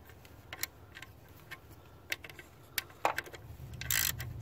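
A hand ratchet and socket clicking as it turns the nut on an alternator's output terminal stud: scattered, irregular clicks, with a louder short rattle near the end.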